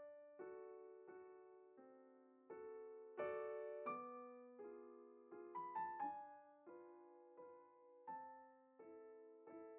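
Quiet background piano music: slow notes and chords struck about once or twice a second, each left to fade, with a quicker run of notes about halfway through.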